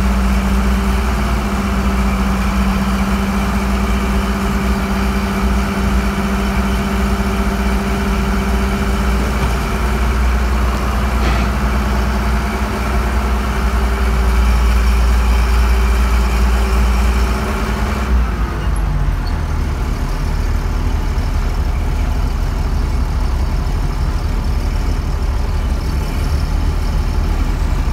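Combine harvester running, heard from inside its cab: a loud, steady engine and machinery hum. About two-thirds of the way through, the higher steady hum winds down and drops away, leaving a lower rumble.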